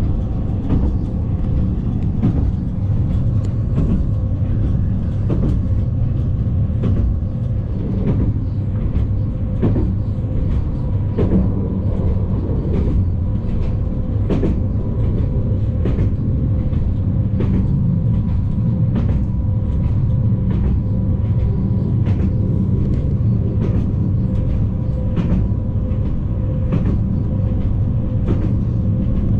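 Inside a Newag Impuls 2 electric multiple unit under way: a steady low rumble of the wheels on the rails with a faint steady hum, and sharp clicks about once a second as the wheels run over the track.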